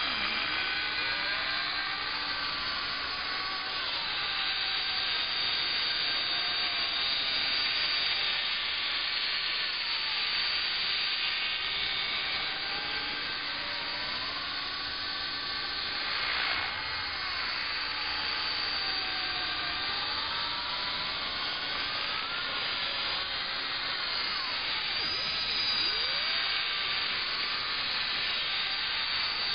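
Align T-Rex 500 electric radio-controlled helicopter in flight: a high, steady whine from its motor and rotors whose pitch slides up and down again and again as it manoeuvres.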